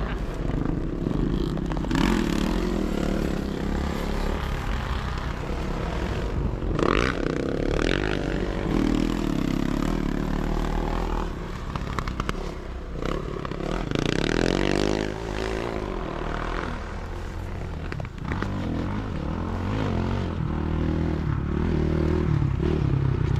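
Sidecar motocross motorcycle engines running and revving, their pitch rising and falling as the outfits go by, with a louder rise and fall about 14 seconds in.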